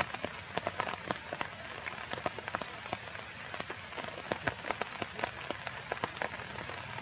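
Rain falling on leaves in forest undergrowth: a steady hiss with many irregular, sharp drop hits close by.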